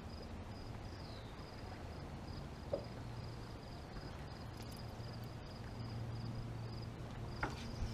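Quiet outdoor ambience on a lake: a faint steady low hum under a high-pitched chirp pulsing evenly several times a second, with a few soft ticks.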